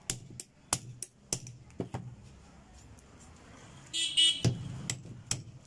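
Sharp metallic knocks of a steel rod driving a churn motor's stator out of its housing, struck around the edge a few at a time, with a louder, longer metallic clatter about four seconds in.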